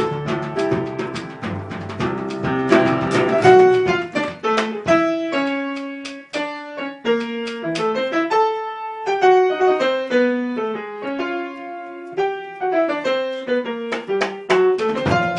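Instrumental piano music with a band. The full group plays for the first few seconds, then the piano carries on mostly alone with slow, sparse held chords, and the fuller band returns near the end.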